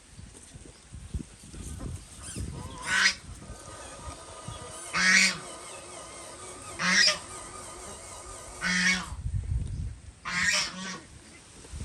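Five loud, short honks, each about half a second long and roughly two seconds apart, over a faint steady background.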